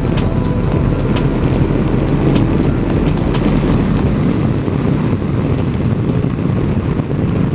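Steady rush of wind and road noise on a helmet camera on a Yamaha Tracer GT motorcycle cruising at dual-carriageway speed, with the engine running underneath.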